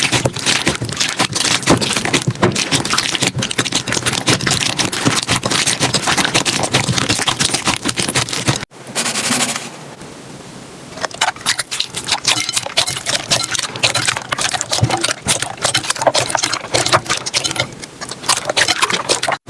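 Slime being squeezed and poked by hands, with dense crackling and popping. It cuts off abruptly about halfway through, goes quieter and smoother for a couple of seconds, then the crackling picks up again.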